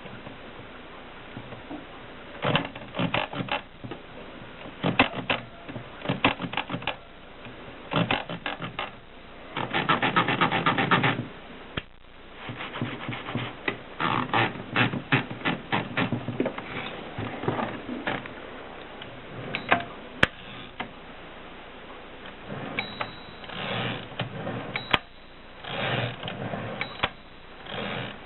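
Groma typewriter being typed on: bursts of sharp key strikes, with a longer run of rapid, evenly spaced clicks about ten seconds in.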